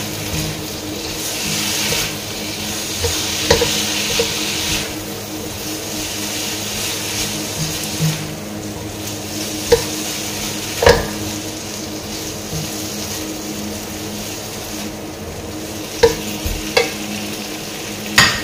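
Beef cubes sizzling with spice paste and sweet soy sauce in a nonstick wok as they are stirred with a spatula, the sizzle strongest in the first few seconds. Several sharp knocks of the spatula against the pan come through it.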